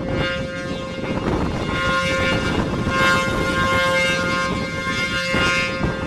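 ACA P-15 rotating horn siren sounding a steady single-pitch alert tone, growing louder and then fading as the turning horn sweeps past, loudest about three seconds in. Strong wind buffets the microphone under it.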